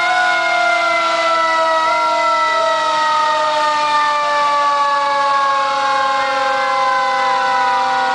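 Fire engine sirens wailing together: several steady tones held at once, all sliding slowly down in pitch.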